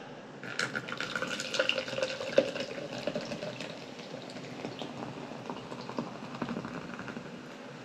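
Zero-sugar ginger ale poured into a glass, fizzing with a dense crackle of bubbles that thins out as the fizz settles.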